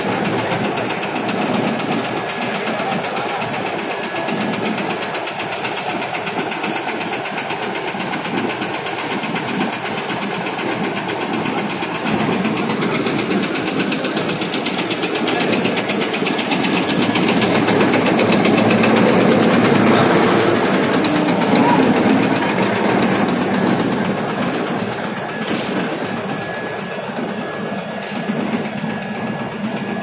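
Steady din of heavy machinery in a steel plant's furnace shop: dense noise with a faint high whine running through it, growing louder for a few seconds past the middle.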